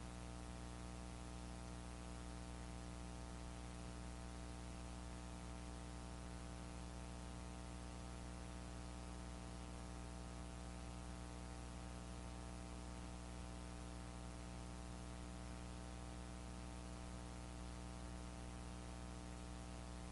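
Steady low electrical hum with a buzzy, evenly spaced set of tones over a constant hiss, unchanging, with no tool or handling sounds.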